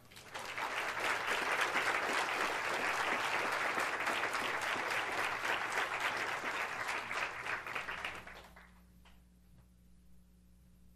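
Congregation applauding a newly married couple, many hands clapping for about eight seconds before dying away.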